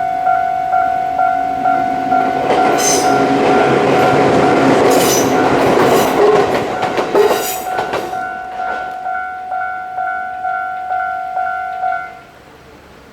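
Japanese level-crossing warning bell ringing in an even beat, a bit under two strikes a second, while a Joshin Electric Railway train passes over the crossing with wheel clatter over the rail joints. The bell stops abruptly about twelve seconds in, once the train has cleared the crossing.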